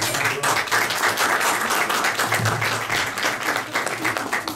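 Audience applauding: many hands clapping together in a steady dense patter.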